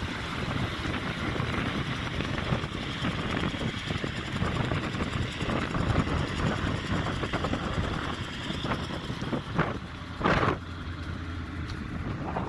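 Wind buffeting the microphone in uneven gusts, with a short louder burst about ten seconds in and a faint steady low hum underneath.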